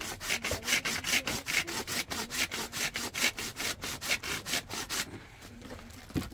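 Hand saw cutting wood: quick, even rasping strokes, about five a second, that stop about five seconds in.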